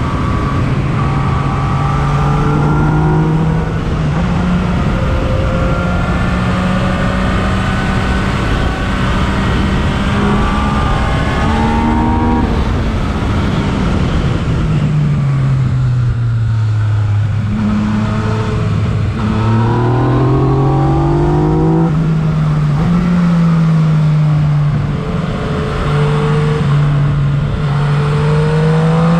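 Yamaha MT-09's three-cylinder engine through an Akrapovic exhaust, heard while riding. The note holds fairly steady with small steps at the shifts, sinks as the bike slows about halfway through, then climbs again and rises near the end.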